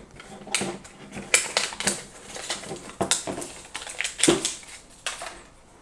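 A small white plastic air quality monitor being handled on a tabletop: irregular clicks, taps and light knocks as it is picked up, turned over in the hand and set down.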